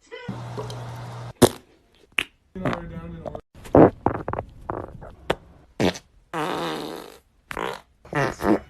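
A quick run of about ten short farts cut one after another. Most are buzzy and rippling; one a little past the middle is a longer, breathy hiss.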